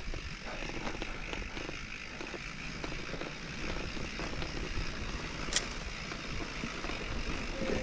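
Mountain bike rolling over a rough dirt trail: steady tyre noise with frequent small knocks and rattles, and one sharp click about five and a half seconds in.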